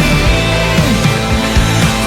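Background rock music with a steady drum beat and a gliding melody line, no singing.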